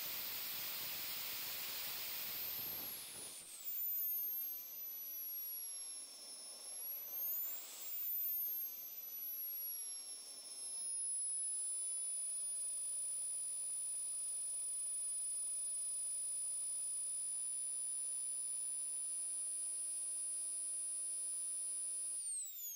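AceX 80 model jet turbine running on a test stand: high-pitched whine with a loud rushing exhaust at high throttle, then spooling slowly down for several seconds. A brief throttle blip comes at about 8 s, then it settles into a steady whine at idle. Near the end the whine drops sharply as the turbine winds down. The slow deceleration is one the owner found too slow, set by the ECU's acceleration and deceleration parameters.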